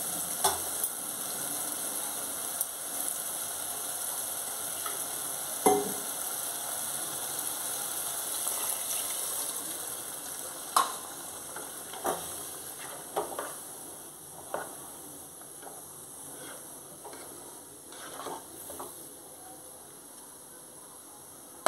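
Tomato-and-coconut gravy sizzling in a nonstick pot as it is stirred with a plastic slotted spatula, with scattered taps and scrapes of the spatula against the pot. The sizzle grows quieter in the second half as the gravy, thinned with water, settles.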